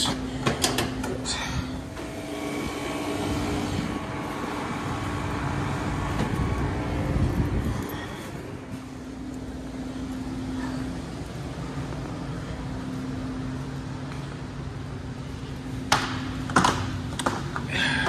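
Metal clatter of a roll-up storage-unit door's latch being locked, over a steady machine hum. A louder mechanical rumble runs for several seconds, and a few sharp clicks come near the end.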